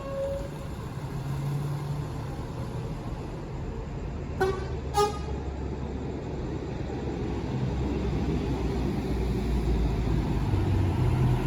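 Intercity bus arriving, its engine rumble growing louder in the second half, with two short horn toots about half a second apart roughly four and a half seconds in.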